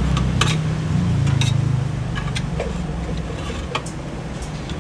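Metal tongs clicking sharply against a metal pan and marrow bones as the bones are turned, a dozen or so irregular clicks over a steady low rumble.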